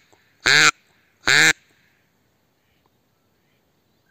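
Mouth-blown duck call giving hen-duck quacks: the end of one, then two more within the next second and a half, each short and loud.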